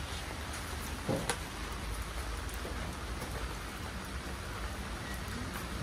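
Steady rain falling and pattering on wet surfaces, with one short click about a second in.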